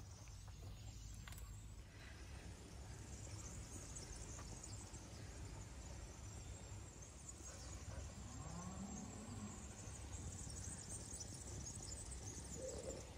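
Quiet outdoor ambience: a steady low rumble with a high, thin hiss over it, and a faint short rising-and-falling tone about eight seconds in.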